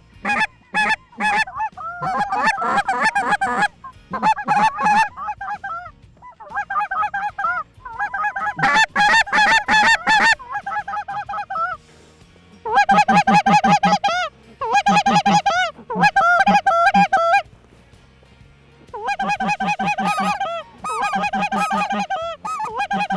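A large flock of geese, mostly light geese (snow geese), calling in bursts of many overlapping honks, with short pauses between bursts.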